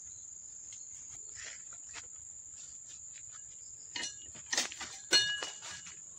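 A steady high buzz of crickets or other insects. In the second half come a few crunching footsteps in grass and leaf litter, with the loudest sharp knocks about four and a half and five seconds in.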